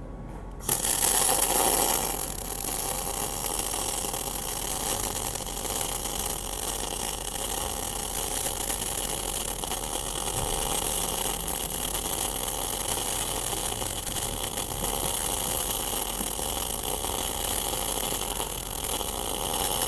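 MIG welding arc from a TOPGUN MIG 315VS welder laying a bead on 30 mm thick steel plate at full output, about 315 A. It strikes about a second in and runs as a steady hiss.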